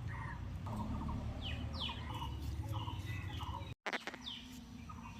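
Small birds chirping repeatedly in short, quick downward-sweeping calls, with a brief cut in the sound just under four seconds in.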